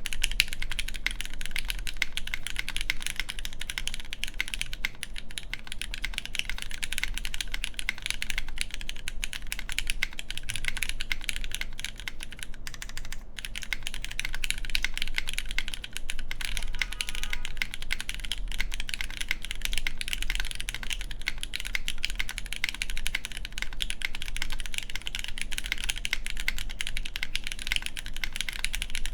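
Continuous fast typing on an Antipode Studio Pneuma Mk.2/60 mechanical keyboard, with all its gaskets fitted. It has lubed Cherry MX Black Clear Top linear switches with 78 g springs, a full aluminium plate and GMK keycaps. The keystrokes come as a dense, unbroken stream of clacks.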